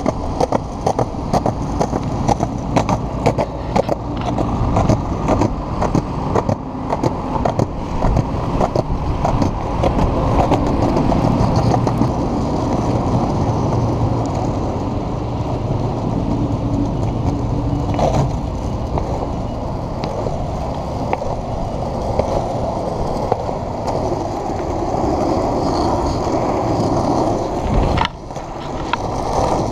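Globe Big Blazer cruiser skateboard rolling on city pavement: a close, rough wheel rumble with frequent clicks as the wheels cross paving-slab joints in the first several seconds, settling into a steadier rumble on asphalt. A sharp knock near the end.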